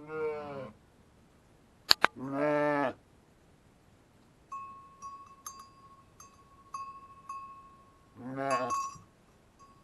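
Sheep bleating three times: once at the start, once about two seconds in and once near the end, with a sharp double click just before the second bleat. From about halfway through, a small bell rings over and over, struck every half second or so.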